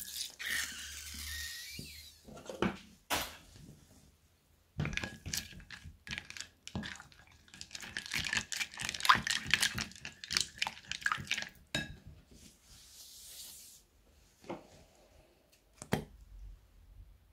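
Silicone spatula stirring a wet, bead-filled slime mixture in a glass bowl: wet squishing and scraping with many small clicks in a dense run through the middle. A few sharp clicks near the end.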